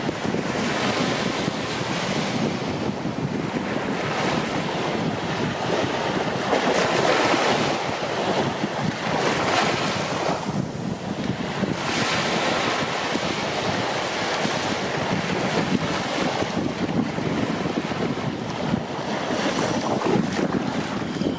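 Ocean waves breaking and washing up the shore in a continuous rush, swelling with each breaker every few seconds, with wind buffeting the microphone.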